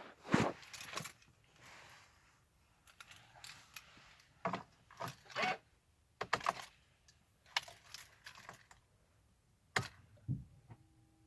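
Irregular clicks and rattles of handling noise. A faint, steady two-pitch electronic tone begins near the end.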